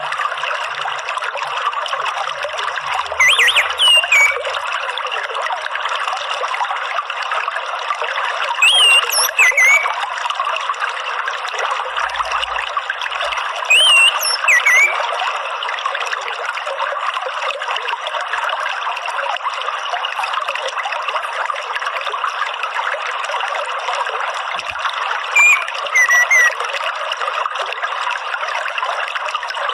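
Steady trickle of running water, with short groups of whistled bird notes, each rising then falling, about four times: near 3, 9, 14 and 25 seconds in.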